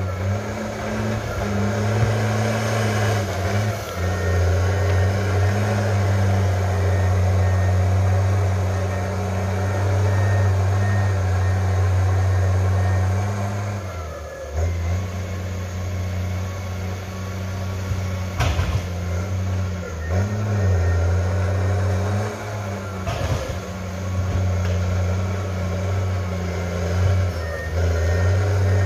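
Crawler tractor's diesel engine working steadily under load as it pushes soil and stumps with its blade, the engine note dipping briefly a few times around the middle and later, with a couple of sharp knocks.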